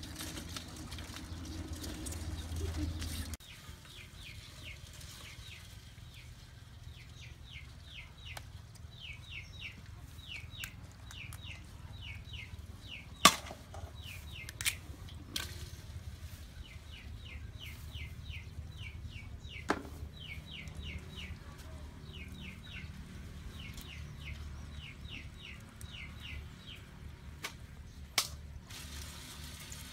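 Outdoor ambience with a bird calling over and over in quick runs of short, falling chirps, under a steady low hum. A few sharp clicks stand out, the loudest about a third of the way in.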